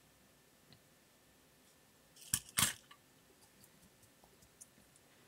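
Two sharp clicks a fraction of a second apart, then a few faint ticks: small hand tools and a potentiometer being handled at a bench vise.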